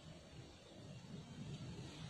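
Faint, steady low background noise with no distinct event; no bird call is heard.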